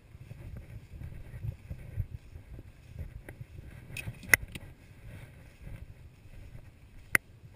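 Walking through tall grass on foot: an uneven low rustle and rumble of steps and wind on the microphone, with a few sharp clicks of gear knocking, the loudest about four seconds in and near the end.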